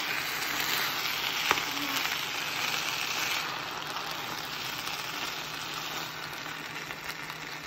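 Chicken fried rice sizzling in a nonstick frying pan as a metal spoon stirs and turns it, with one sharp clink of the spoon against the pan about a second and a half in. The sizzle eases a little about halfway through.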